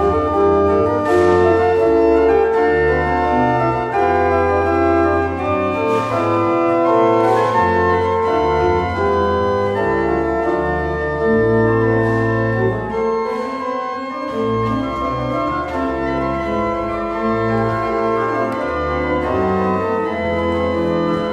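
Church pipe organ playing a slow piece of held chords over deep pedal bass notes, the chords changing every second or two.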